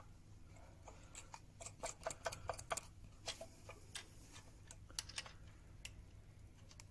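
Light, irregular metallic clicks of a steel nut and washers being handled and spun onto a bolt by hand, thickest in the first three seconds and thinning out after about five, over a faint low hum.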